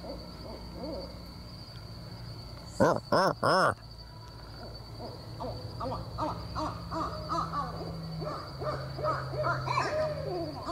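Owls hooting at night: three loud hoots close together about three seconds in, then a run of shorter, quicker, fainter calls through the second half. A steady high thin whine runs underneath.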